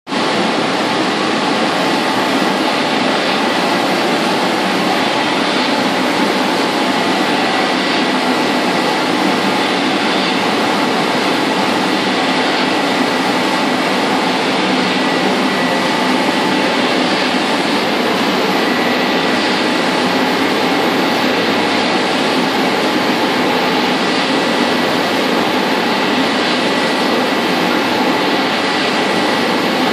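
Roland Favorit RFOB offset press running as a UV coating machine together with a conveyor UV drying tunnel and its cooling fans: a loud, steady machine noise with a thin, steady high whine.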